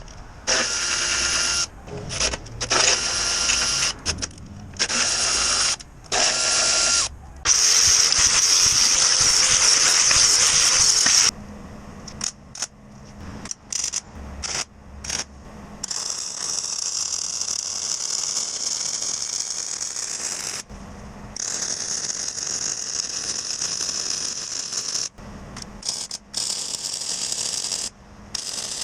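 A power tool run on metal in short trigger bursts, then in several longer steady runs of a few seconds each, with its pitch shifting a little under load.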